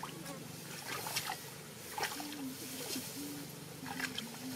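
Scattered rustling and crackling of tall grass stalks as someone moves and works in among them. A faint low hum comes and goes in the second half.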